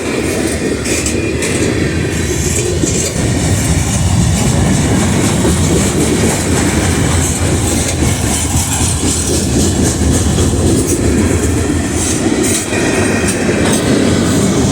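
Norfolk Southern freight train rolling past, a steady loud rumble of wheels on rail with clickety-clack as the cars' wheels cross the rail joints.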